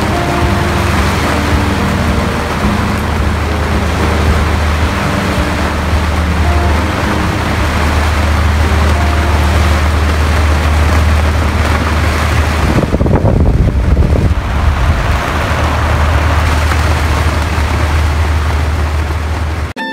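Loud steady rush of wind and water on a boat under way, with a low rumble underneath. About two-thirds of the way through, the rumble drops away for a moment and a rougher rush swells briefly.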